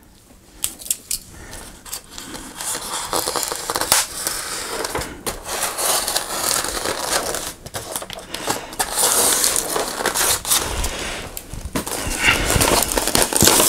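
Statue box being cut open with a knife and its packaging pulled apart: scraping, tearing and crackling, with many sharp clicks and knocks.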